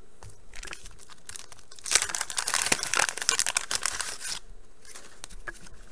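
Waxed-paper wrapper of a 1989 Bowman baseball card pack being torn open and crinkled by hand: a few small crackles, then a dense tearing crinkle about two seconds in that lasts a couple of seconds.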